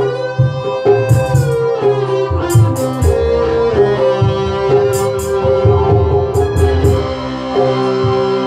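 A small live band playing an instrumental: a Roland E-70 keyboard holds a sustained melodic lead, some notes sliding in pitch, over hand-drum beats with sharp slaps and an electric bass line.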